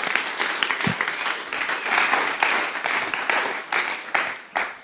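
Congregation applauding, many hands clapping, dying away near the end.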